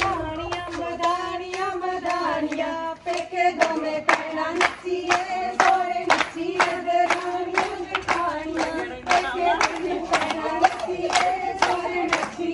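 Group of women singing a Punjabi folk song together for gidha, held notes in unison, with the whole circle clapping hands in a steady rhythm of about two claps a second. The singing starts at the very beginning.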